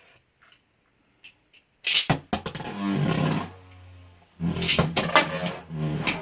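Beyblade tops launched into a plastic stadium, first a run of faint clicks, then, about two seconds in, a sudden loud whir with sharp clacks as the spinning tops hit each other and the stadium walls.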